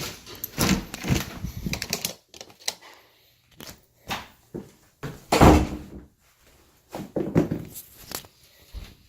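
Irregular clattering and knocks of things being handled in a small room, with one louder thud about five and a half seconds in.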